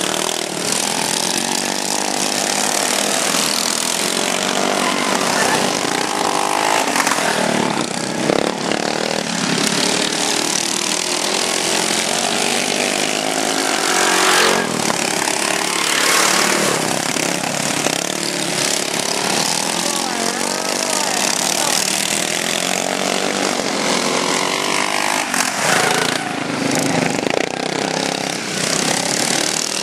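Racing lawn mowers' small engines running hard at full throttle, several at once, their pitch rising and falling as they rev up and down through the corners.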